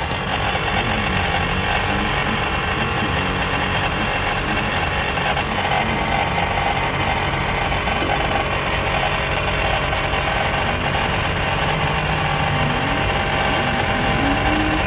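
An engine idling steadily at an unchanging pitch.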